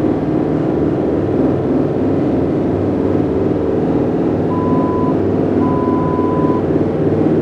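Experimental electronic drone soundtrack: a dense, grainy low rumble with several steady low tones held underneath. Two short, thin, steady high tones sound a little past the middle, the second one longer.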